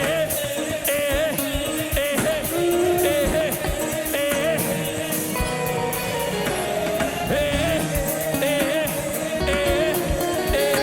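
Live gospel worship music: a band playing with singing voices over drums.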